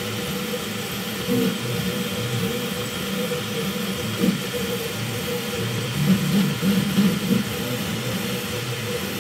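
Up Mini 3D printer running a print: the stepper motors whir in short, shifting low pitches over a steady hum and a constant hiss.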